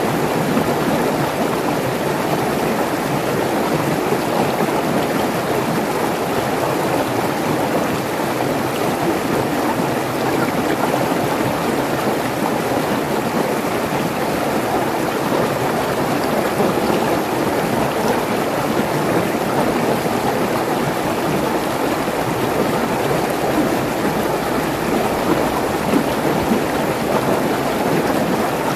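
Mountain stream rushing and splashing over rocks in small cascades, a steady, unbroken rush of water.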